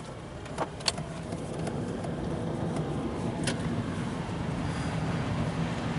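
Car driving, heard from inside the cabin: engine and road noise building over the first couple of seconds as it pulls away, then steady. A few sharp clicks near the start and one more partway through.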